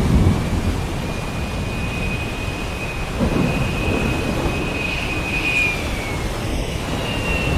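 Heavy rain hissing with low rolling thunder rumbles, one at the start and another about three seconds in. A thin high whistle runs steadily through the middle.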